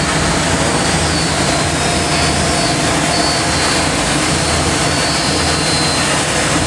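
Steady, loud mechanical roar with a low hum underneath: background machinery noise in a workshop, unchanging throughout.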